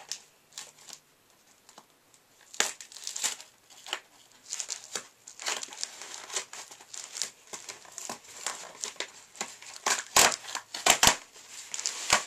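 Scissors working through the packaging on a hockey shooting pad, with crinkling, scraping and tearing of the wrap in irregular strokes; quiet for the first couple of seconds, then busier and louder toward the end.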